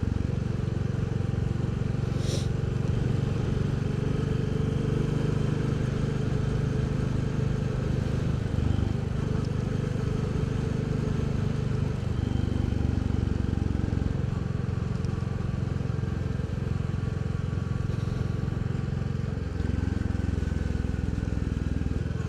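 Royal Enfield Bullet 350's single-cylinder engine running steadily while the bike is ridden, with the revs changing about twenty seconds in.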